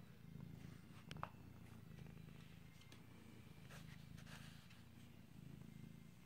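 Cat purring softly and steadily, with a short click about a second in.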